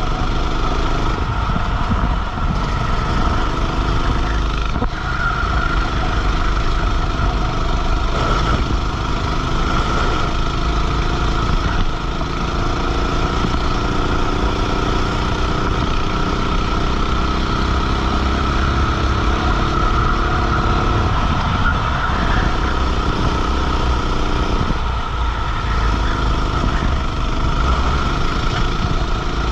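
Racing kart engine heard onboard, revs climbing steadily as it accelerates, then falling away sharply twice in the later part as the driver lifts for corners before pulling up again. A steady rush of noise runs underneath.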